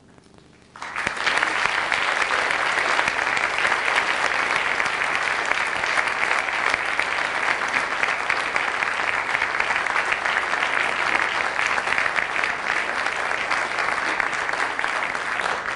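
Audience applause: after a brief hush, clapping breaks out suddenly about a second in and keeps up steadily.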